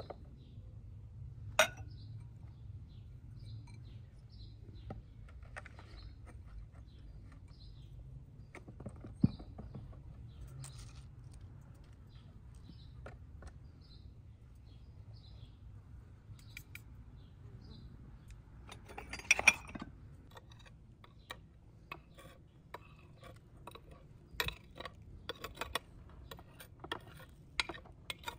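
Scattered knocks and clinks of dishes and a plastic pickle jar being handled, then near the end a metal spoon tapping and scraping quickly against a glazed bowl as ground spice is pushed into the jar.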